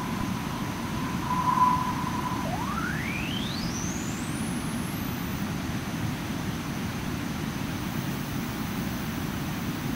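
Synthesized jet-engine sound from ZynAddSubFX: steady filtered noise with a low rumble and a whistling tone on top. About two and a half seconds in, the whistle glides upward to a very high pitch over about three seconds as the EQ peak frequency is swept, leaving a steady rushing noise.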